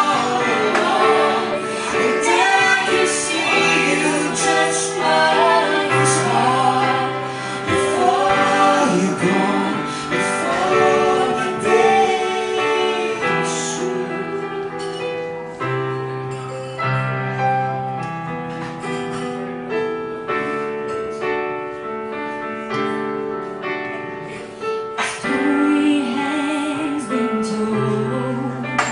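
A woman singing a slow ballad live into a microphone, her voice wavering on held notes, over sustained chords that change every couple of seconds.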